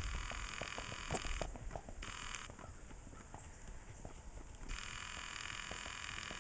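Hoofbeats of a bay gaited horse walking over packed dirt and grass: a run of soft, irregular clip-clops, thickest in the first couple of seconds and fading as the horse moves away.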